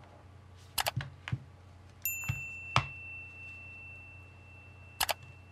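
A handful of sharp clicks and taps, several about a second in, two more between two and three seconds, and a last one near the end. A thin, steady high tone comes in about two seconds in and slowly fades.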